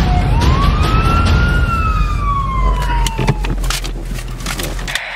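Police siren wailing: one long rise and fall that cuts off about three and a half seconds in. Under it runs the steady rumble of a moving car, and near the end come a few sharp knocks.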